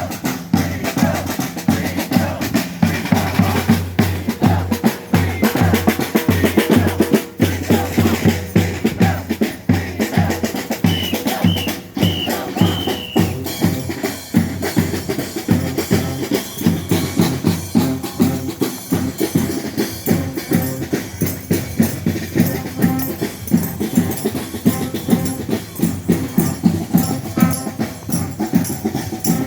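Street band playing a steady, driving drum beat on snare and bass drum, with other instruments underneath. A few short high notes sound about eleven seconds in.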